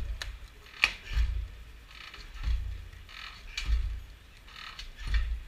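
A pry bar levered again and again into the edge of a wooden window frame fitted with shattered laminated burglar-resistant glass. About five strained strokes, roughly one a second, each a dull thud with scraping and creaking of metal on wood and glass, plus one sharp click about a second in. The wooden frame is not giving way.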